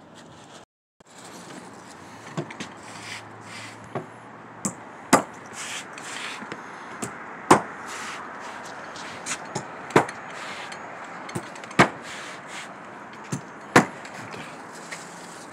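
A sharp knock every two seconds or so, five loud ones in all, over a steady background hum.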